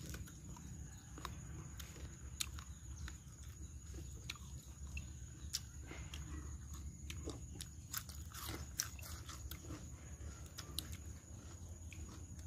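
People eating by hand, chewing roast chicken and raw cucumber, with irregular soft crunches and clicks; a few louder crunches come about two-thirds of the way through.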